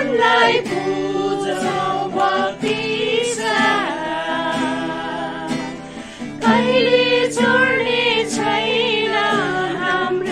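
Singing with a strummed acoustic guitar: a young woman's voice carries the song over steady guitar chords.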